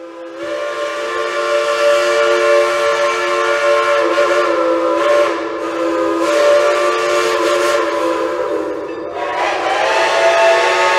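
Steam locomotive chime whistles blowing long and steady, several notes sounding together. About eight and a half seconds in the first whistle drops away, and a second whistle with a different chord takes over near the end.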